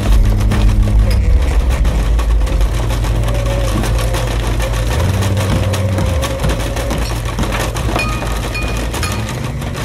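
Electroacoustic free-improvisation music: low droning tones that shift pitch several times, a wavering mid-pitched tone, and a dense layer of crackling, splintering clicks.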